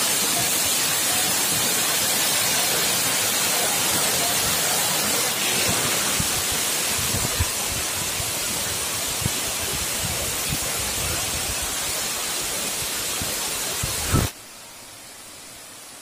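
Waterfall spray falling close to the microphone: a steady, loud rushing hiss, with a few low bumps on the microphone in the second half. About fourteen seconds in it cuts off to a much fainter, even hiss of the falls heard from further away.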